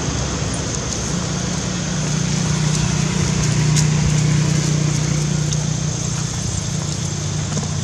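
A steady low drone, like a motor running nearby, over a constant outdoor hiss; it swells slightly about halfway through, with a few faint clicks.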